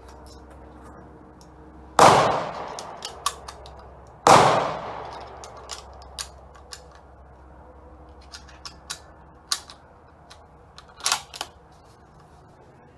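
.308 bolt-action rifle fired twice, about two seconds apart, each shot with a long ringing tail. Afterwards come a scattering of sharp metallic clicks as the bolt is worked.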